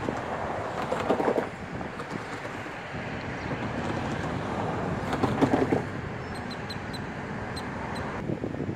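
Steady outdoor background of distant road traffic and wind on the microphone, swelling briefly twice, with a few faint high chirps near the end.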